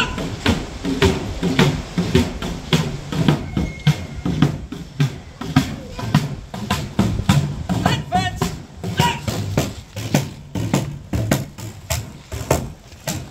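Military side drum (snare drum) beating a steady marching cadence, with people talking in the background.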